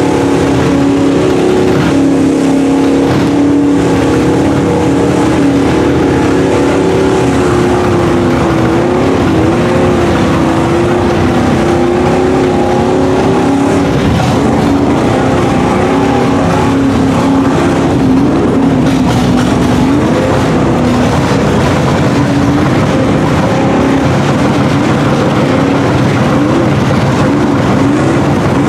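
Chevy pickup truck's engine running under load as it pushes through deep floodwater, its pitch wavering up and down with the throttle, over the churn and splash of water around the wheels.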